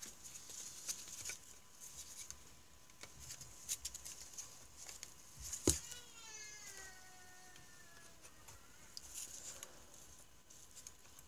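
Faint clicks and scrapes of a flathead screwdriver prying at a rubber wiring grommet in an engine block, with one sharp click about halfway. Just after it comes a drawn-out squeak that slowly falls in pitch.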